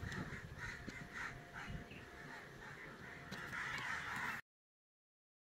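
Crows cawing repeatedly, several short calls a second, running into a longer drawn-out call before the sound cuts off abruptly about four and a half seconds in.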